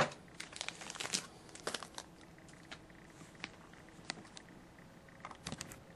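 Faint crinkling and scattered light clicks, as of objects being handled, thickest in the first two seconds and again near the end.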